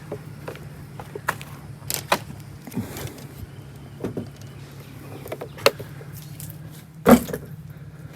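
A series of sharp knocks and clanks from handling parts on a vehicle, the loudest about seven seconds in, over a steady low hum.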